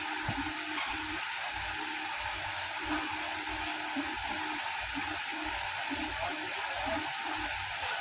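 KNC 91 automatic key cutting machine's motors running as its probe traces a key held in the clamp: a steady whir with a thin high whine that comes and goes.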